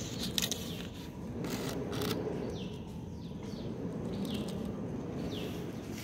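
A bird calling in short, falling notes, about one a second, from about two seconds in, over a steady low background noise. A few handling or footstep clicks come in the first two seconds.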